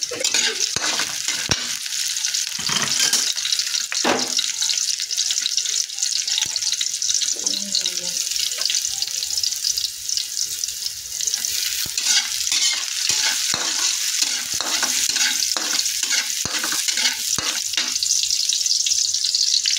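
Chopped onion and garlic sizzling as they fry in an aluminium wok, with a metal spatula repeatedly scraping and clacking against the pan as they are stirred.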